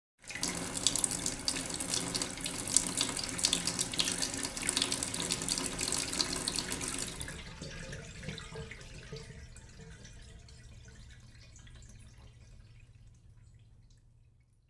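Heavy rain pouring and splashing, a dense crackling hiss that fades away after about seven seconds, leaving only a faint low hum.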